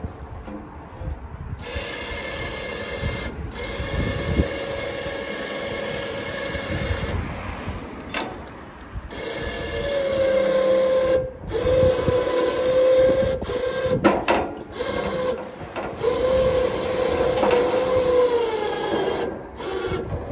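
Crane winch motor whirring in short stop-start runs as it hoists waterlogged shopping carts, its pitch steady while it runs and sagging once near the end. A few metal knocks come from the carts along the way.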